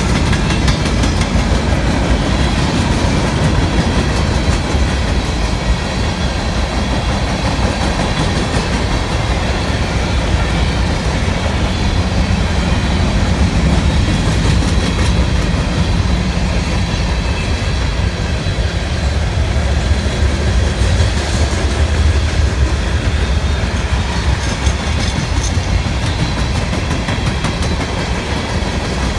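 A long freight train's cars rolling past close by: a steady loud rumble of steel wheels on rail, with repeated clacking of the wheels over the rail joints.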